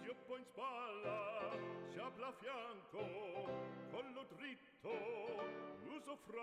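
Background music: an operatic voice singing with wide vibrato over instrumental accompaniment.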